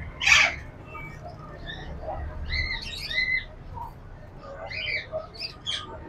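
Caged parrots calling: a loud harsh squawk just after the start, then scattered short chirps and squawks, with a cluster of calls in the middle and more near the end.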